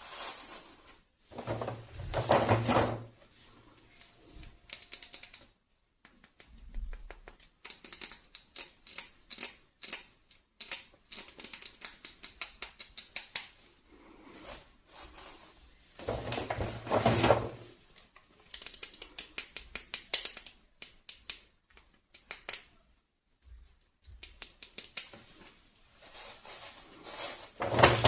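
Hands handling toy doll packaging and plastic doll parts: rapid runs of small plastic clicks and taps, with three louder rustling, crinkling bursts.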